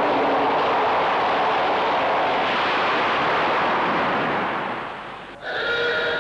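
Crash-test carriage driven down its track by a linear induction motor: a loud, sustained rushing noise. It fades about five seconds in and gives way briefly to a steady whine with several tones.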